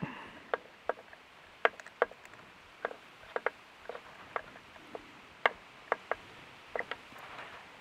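Irregular light metallic clicks, a dozen or so, as a steel socket on a short extension is turned by hand to run a bolt in.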